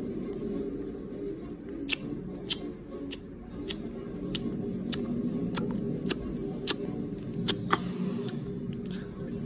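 Lip smacks and tongue clicks of someone licking a lollipop right at the phone's microphone, a sharp click about every half second, over a low steady hum.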